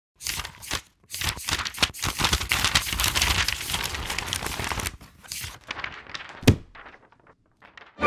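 Paper-like rustling and tearing sound effect of an animated logo intro: a dense run of crinkling strokes that thins out after about five seconds, with one sharp snap about six and a half seconds in.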